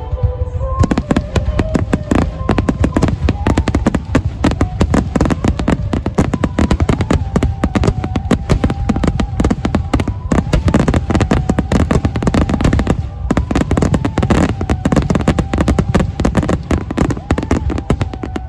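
A mass barrage of aerial fireworks: shells bursting in a dense, continuous run of bangs and crackles, starting in earnest about a second in.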